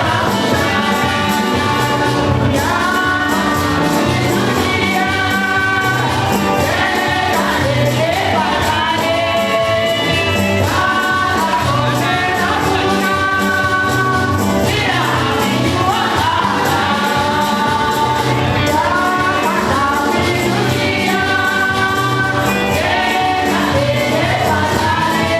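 Choir singing gospel music with a steady beat.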